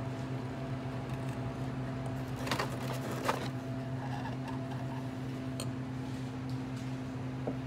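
Beer poured from a glass bottle into a tulip glass, the liquid quiet under a steady low electrical hum. Two soft clicks about two and a half and three seconds in.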